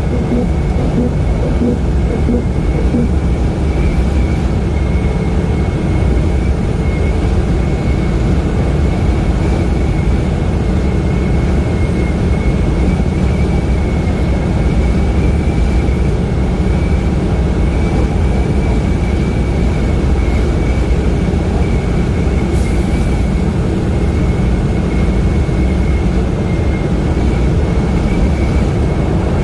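Steady road and engine noise of a vehicle driving along the highway, a constant low rumble with a thin steady whine above it.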